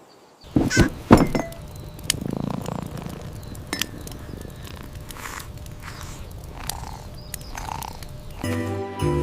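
A series of sharp clicks and knocks, the two loudest about half a second apart near the start, followed by scattered lighter clicks and soft rustling.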